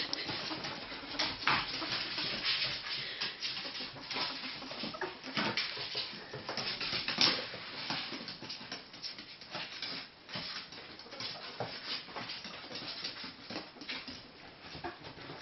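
Ferrets' claws scrabbling and scratching over a cardboard box, a fast, irregular run of scratches and light knocks.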